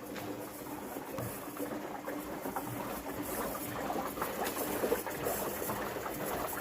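Water running and splashing, a steady dense pattering.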